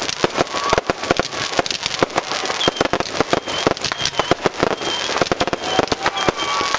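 A fireworks barrage going off: a dense, rapid run of pops and bangs, with short high whistling tones about twice a second.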